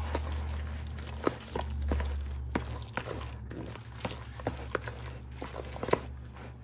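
A spoon clicking and scraping in a mixing bowl as spinach and cheese filling is stirred, with irregular small knocks over a low rumble.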